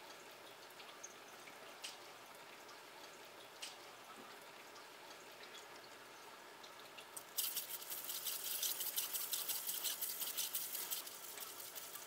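Forcipol grinder-polisher wheel spinning wet under running water, with a steady faint hiss. About seven seconds in, a rock chip pressed onto the 240-grit silicon carbide paper sets off a louder, dense gritty scratching that eases off near the end.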